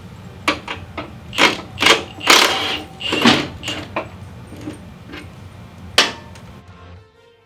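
Irregular metal clanks and clicks of hand tools on a Harley-Davidson's rear shock mount as the shock is taken off, with a few longer rattling bursts in the middle and one sharp knock about six seconds in.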